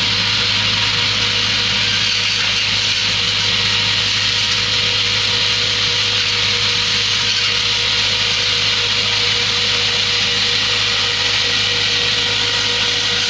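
Tractor-mounted disc pre-pruner at work: the tractor engine running with its vertical stack of spinning circular blades cutting through citrus foliage. It makes a steady mechanical noise with a constant hum and a strong hiss.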